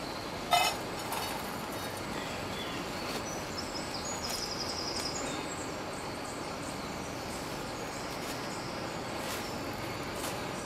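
Plastic cereal bag crinkling sharply about half a second in, over a steady rushing background. A small bird gives a short run of high chirps about four seconds in, and there are a couple of faint handling clicks near the end.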